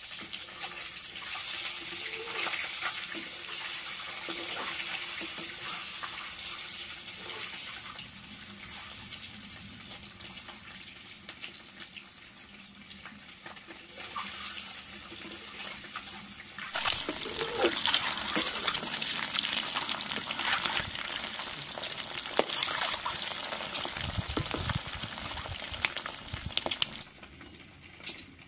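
Eggs frying in mustard oil in a kadai: a steady sizzle with crackling that becomes much louder and busier about two-thirds of the way in, then falls away near the end.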